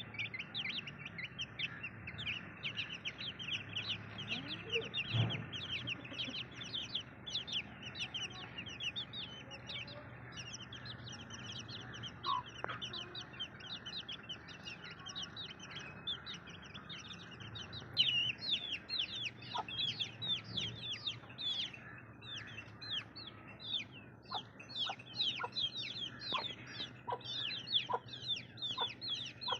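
A brood of baby chicks peeping continuously: many short, high, downward-sliding peeps overlapping one another.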